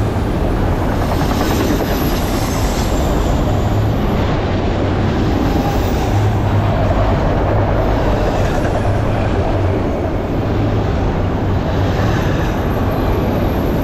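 Empty autorack freight cars rolling past at close range, their wheels making a steady rumble on the rails.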